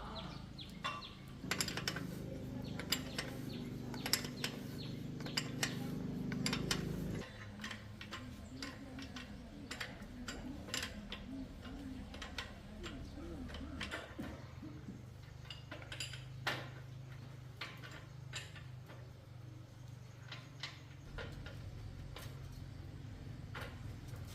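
Irregular metallic clicks and taps of hand work on a bicycle's parts, over a low steady hum that cuts off suddenly about seven seconds in and comes back around halfway through.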